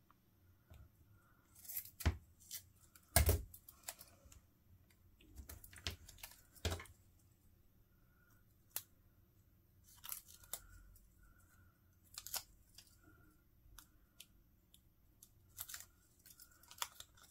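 Paper and craft pieces being handled on a desk: scattered short, sharp clicks and snips with brief soft paper rustles in between.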